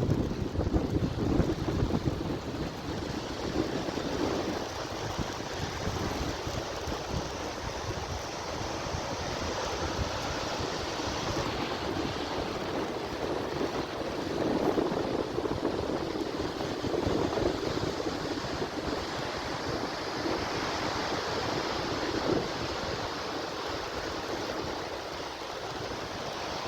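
Storm surf breaking on the shore, the wash of the waves swelling and easing every few seconds, with wind buffeting the microphone.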